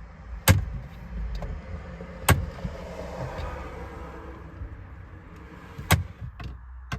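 Four sharp plastic knocks and clicks, spaced irregularly, as a steering-wheel airbag module is rocked and pried with a pick tool to free its last retaining clip, over a steady low hum.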